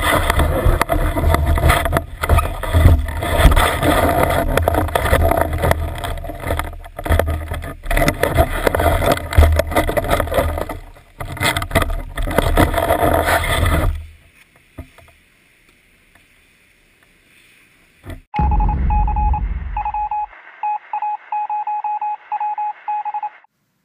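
Loud rushing, scraping noise with a deep rumble from a snowboard sliding over snow, with wind buffeting the camera's microphone. It cuts off after about 14 seconds. Later comes a quick series of short electronic beeps at one pitch in an uneven rhythm.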